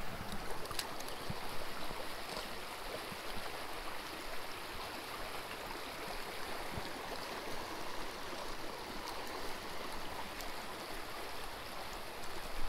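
A shallow stream running steadily over a gravel riffle, an even babble of moving water.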